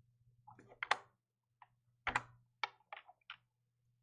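Computer keyboard keys tapped, about six short clicks at uneven spacing, the loudest about two seconds in, over a faint steady low hum.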